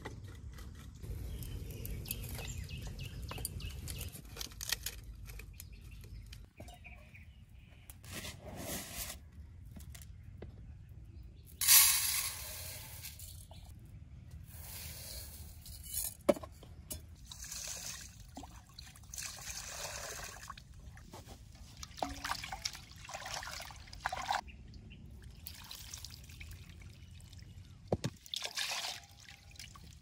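Water pouring and trickling in a series of separate splashy bursts, the loudest about twelve seconds in.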